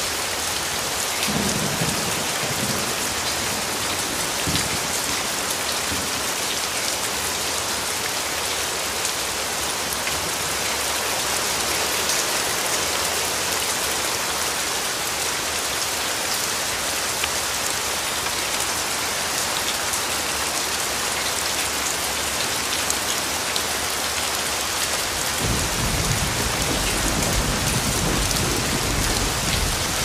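Steady rain falling, an even hiss. A low rumble of thunder comes in near the end and keeps on.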